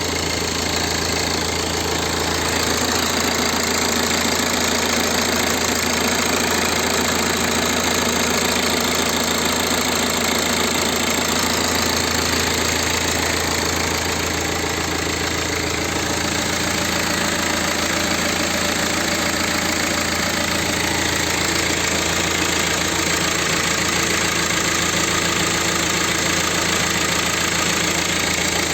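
BMW E90's N47 four-cylinder turbodiesel idling steadily. It is being checked for the N47's known timing chain noise, which the owner thinks is not really there at idle.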